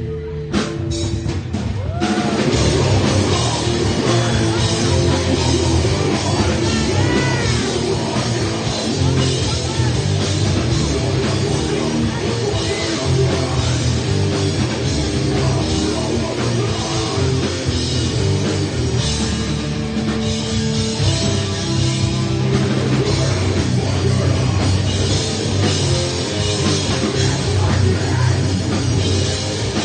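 Heavy metal band playing live, with drum kit driving the song. A few separate hits come at the start, and the full band comes in about two seconds in.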